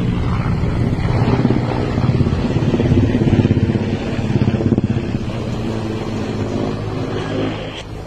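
An engine running steadily with a low hum, easing off slightly near the end.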